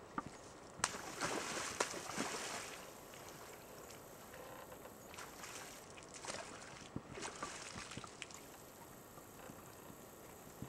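Bull elk drinking at a shallow pond's edge: faint sloshing and splashing of water, with scattered sharp clicks and knocks, the loudest just under a second in.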